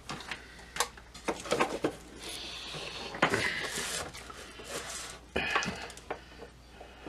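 Knocks, clatter and scraping as a Zenith B600 Transoceanic radio's cabinet and chassis are handled and tipped over on a workbench. There are several sharp knocks in the first two seconds, then longer rubbing scrapes.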